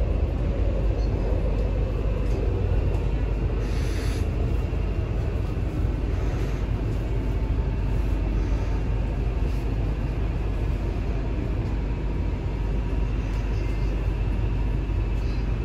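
Steady low rumble of an MTR Kwun Tong Line C-train, heard inside the passenger car as it runs on the track and slows to a stop at a station.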